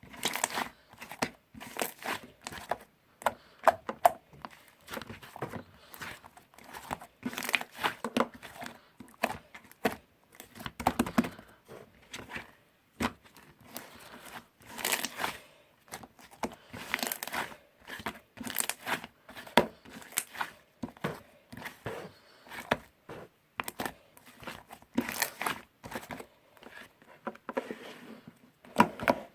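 Irregular crinkling and crackling of material being handled close by, with short sharp rustles and small tearing sounds in uneven bursts.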